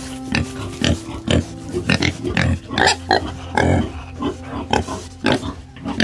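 An animal making short, repeated grunting calls, about two a second, over a steady low drone.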